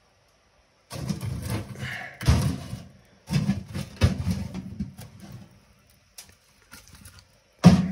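Split firewood being loaded into a small steel wood stove: logs knocking and clattering against the firebox and each other for a few seconds, then a few light clicks and one sharp knock near the end.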